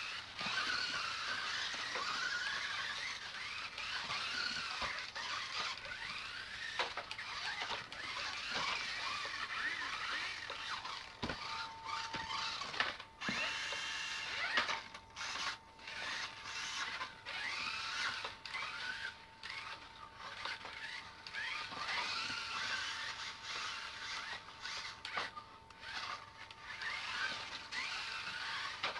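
Several Kyosho Mini-Z radio-controlled cars' small electric motors whining, the pitch rising and falling over and over as the cars speed up and slow down, with a few sharp clicks.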